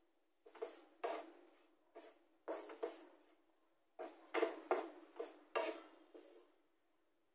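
Wooden spatula scraping and tapping in a nonstick frying pan while stirring dry desiccated coconut as it roasts. The strokes are short and irregular, about one or two a second, come thickest from about four seconds in, and stop shortly before the end.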